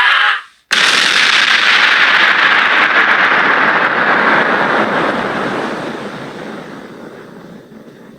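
A scream cuts off, and after a brief silence a loud explosion-like blast hits suddenly, its rushing rumble fading slowly over several seconds.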